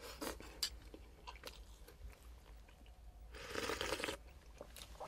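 A person eating from a porcelain bowl with a spoon: quiet chewing and small clicks, then a longer sip or slurp from the bowl about three and a half seconds in.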